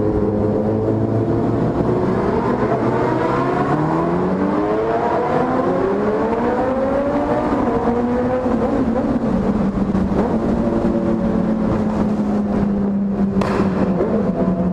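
Several sport motorcycle engines running and revving together inside a road tunnel, their overlapping notes rising and falling at different pitches. One note holds steady for a few seconds past the middle, and another climbs near the end.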